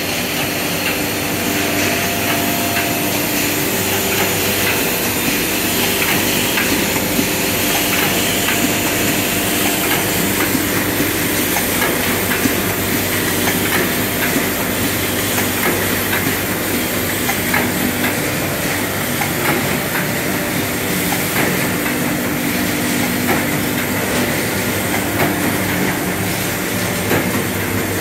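Hohner HSB 13000 saddle stitcher running steadily: a continuous mechanical clatter of many quick clicks over constant machine noise.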